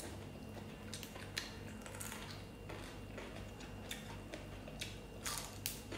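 Faint clicks, crunches and rustles of people eating with their hands and picking at fresh herbs and vegetables, with a couple of louder crunching strokes near the end, over a low steady hum.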